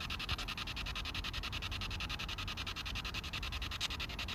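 SB7 spirit box sweeping through radio stations: a steady, fast chopping hiss of static at about ten pulses a second.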